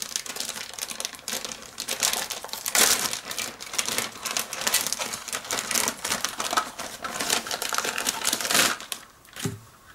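Clear plastic bags crinkling and crackling as they are handled and lifted off the plastic model-kit sprues, a dense run of small crackles that dies away about nine seconds in.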